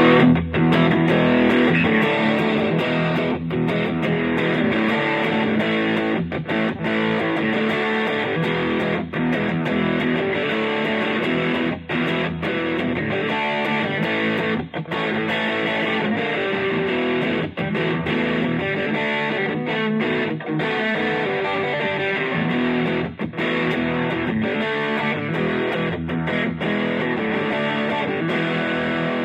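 Fender Stratocaster electric guitar played through an MXR Super Badass distortion pedal into a Fender Blues Junior tube amp: a continuous run of distorted notes and riffs, with brief breaks between phrases.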